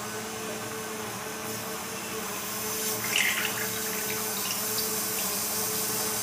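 A thin stream of coconut oil pouring from a plastic bottle into an iron kadhai, trickling into the oil already in the pan, with a steady hum underneath. The pouring gets a little louder about two and a half seconds in.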